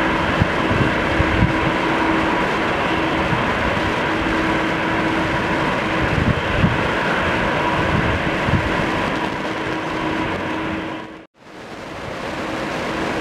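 Jet engines of a rear-engined DC-9-family airliner at takeoff power, a steady rushing noise with a steady whine, and wind buffeting the microphone. About eleven seconds in the sound drops out completely, then similar jet noise fades back in.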